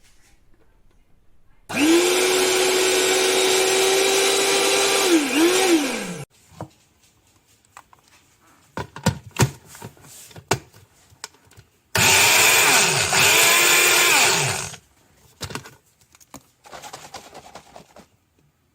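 Breville Blend Active 350 W personal blender motor running in two loud bursts, one of about four seconds and one of about three. The first dips in pitch near its end, starts briefly again, then winds down. Clicks and knocks from the bottle being handled come between the runs and after them.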